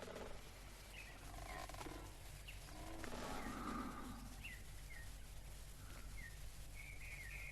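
Faint bird chirps, short scattered calls every second or so that come more often near the end, over a low steady background hum. A faint, indistinct lower sound swells around the middle.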